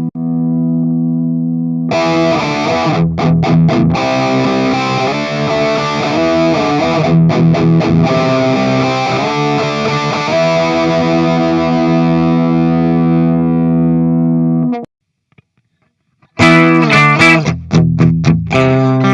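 Electric guitar played through an M-Vave Tank Mini amp-modeling pedal with a distorted tone. A held chord rings out, then a busy riff follows that stops dead for about a second and a half before loud stop-start chords begin.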